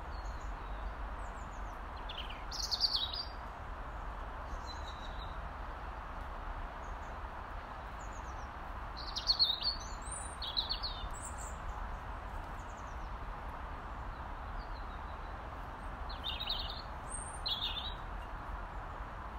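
Robin calling: short bursts of high, thin, quickly sliding notes, three times about seven seconds apart, over a steady background hiss.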